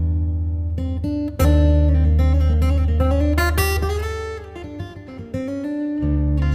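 Background music led by plucked and strummed acoustic guitar over a steady bass, with new chords struck about a second and a half in and again near the end.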